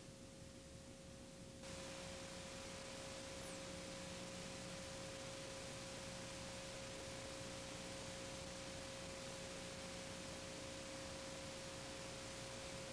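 Faint steady mid-pitched tone over tape hiss from an old videotape transfer. The hiss grows louder about a second and a half in, with a thin high whine that fades out a couple of seconds later.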